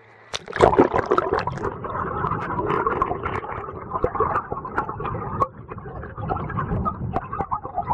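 Water sloshing and gurgling close to the camera, with small splashes, starting about half a second in.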